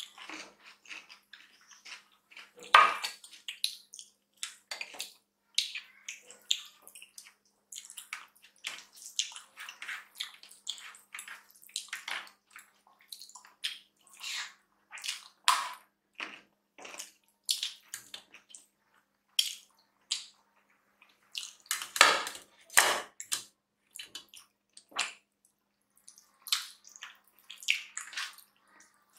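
Close-up eating sounds: wet squelching and smacking as rice and dal are mixed and eaten by hand, with chewing and lip smacks in quick, irregular clicks. A few louder smacks come about three seconds in and again around twenty-two seconds.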